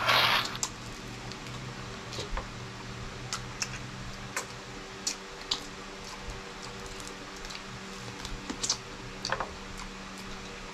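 Close-miked eating sounds of people chewing chicken with their mouths: scattered wet clicks and lip smacks, with a short rustling burst right at the start.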